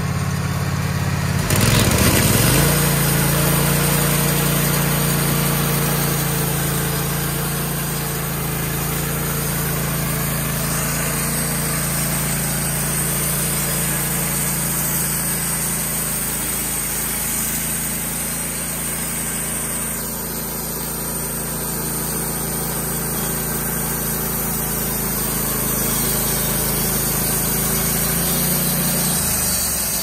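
Wood-Mizer LT15 sawmill's Kohler Command Pro engine revs up about a second and a half in. It then runs steadily under load while the band blade cuts along a pine log. Near the end the engine pitch drops as it winds down at the end of the cut.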